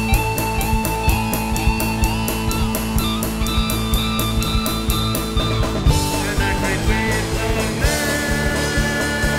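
Rock music with drums, bass and electric guitars: a steady quick drum beat under held guitar and bass notes, and the arrangement changes about six seconds in.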